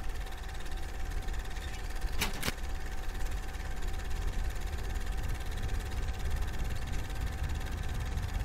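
Steady mechanical whirring with a constant hum and low rumble, like an old film projector running, with two quick clicks about two seconds in.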